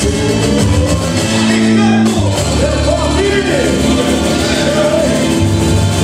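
Boi-bumbá toada music played live by a band on stage: drums and bass, with a singing voice that comes in about two and a half seconds in.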